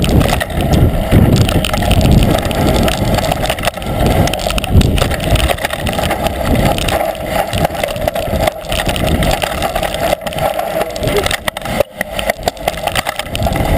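Mountain bike riding down a bumpy dirt singletrack, heard from a camera on the bike or rider: steady wind buffeting and rattle, with many short knocks from bumps in the trail.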